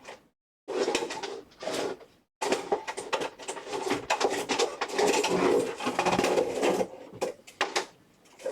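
Clicks, knocks and rustling of hard plastic console parts being handled and fitted, with two short dead-silent breaks near the start.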